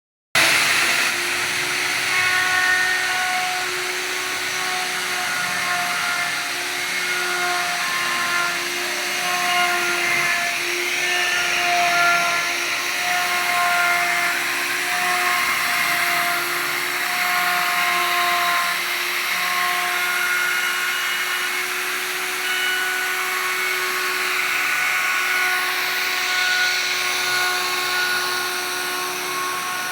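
An electric power tool's motor running continuously, with a steady whine over a hiss that wavers slightly as the load on it changes.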